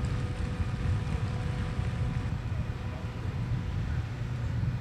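Steady low outdoor rumble with a faint steady hum over it.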